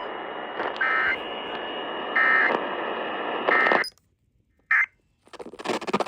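Weather-radio receiver hiss, with three short bursts of high electronic data tones about a second apart. About four seconds in the audio drops out to silence, broken by one more brief tone burst, and near the end a brighter, noisier signal starts.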